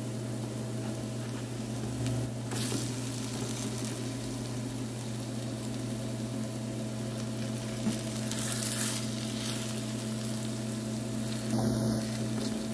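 Grated-potato pancakes sizzling as they fry in a nonstick pan of hot oil, with a slotted spatula scraping and pressing them now and then. A steady low hum runs underneath.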